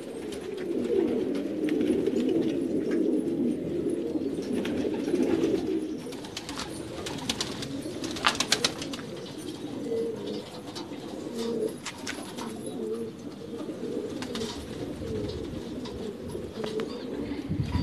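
Fancy pigeons cooing, several low coos overlapping throughout, with a few sharp clicks around the middle.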